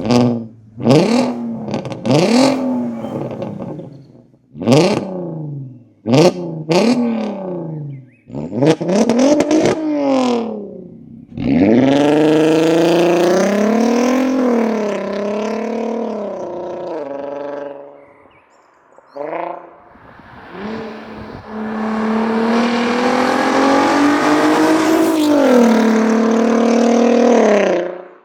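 Volkswagen Golf R32 Mk5's 3.2-litre VR6 engine free-revving through its exhaust. First comes a series of sharp throttle blips, each climbing and dropping back within about a second. Then come two long stretches held at high revs, the second ending abruptly near the end.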